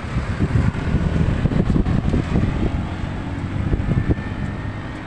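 Road traffic passing on a concrete road: a motorcycle and a small hatchback car driving by close to the microphone, with wind buffeting the microphone.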